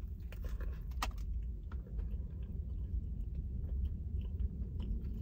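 A person chewing a mouthful of burger with closed lips, small soft clicks of the mouth and one sharper click about a second in, over a steady low hum.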